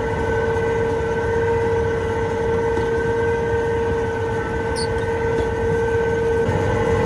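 Dewulf Certa potato planter running at work: a steady mechanical whine with several overtones over a low rumble.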